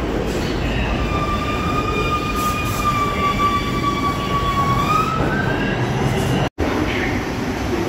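Bombardier R62A subway train on the 6 line pulling into the station and braking, with a loud steady rumble. A high brake squeal holds one pitch from about a second in and rises as the train comes to a stop.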